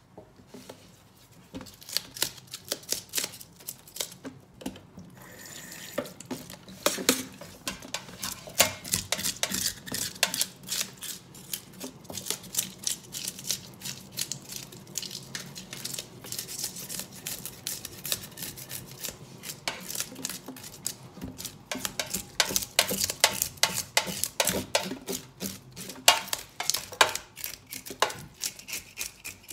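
Knife scraping the scales off a whole hilsa fish in a stainless steel sink: a rapid series of short scraping strokes with clicks against the steel, pausing briefly about four seconds in.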